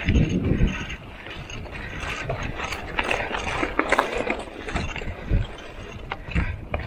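Mountain bike clicking and rattling as it moves over rough ground, with a heavy thump in the first second.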